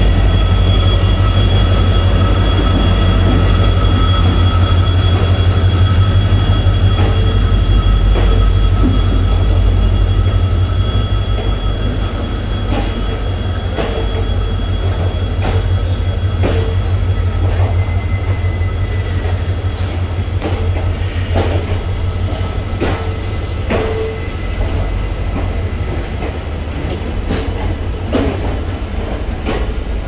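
EMD WDP4D diesel locomotive's 16-cylinder two-stroke engine running with a loud, low drone as the train pulls out. The drone eases after about ten seconds. Then passenger coaches roll past, their wheels clicking more and more often over the rail joints.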